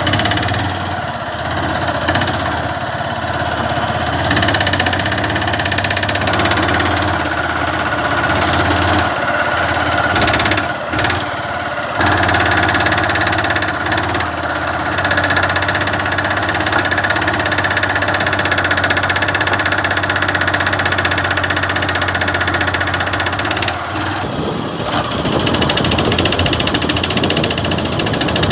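Honda CG 150 Fan's air-cooled single-cylinder four-stroke engine running while the bike is ridden, briefly dropping off a few times near the middle. The noise it makes on gear changes and under load is the balancer drive gear with broken damper springs, a sound often mistaken for piston or connecting-rod knock.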